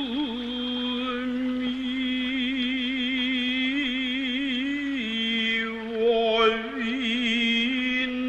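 A single voice chanting long, drawn-out notes in Noh style with a wavering vibrato. It slides up into the first note, drops a step in pitch about halfway through, swells louder briefly, then rises back.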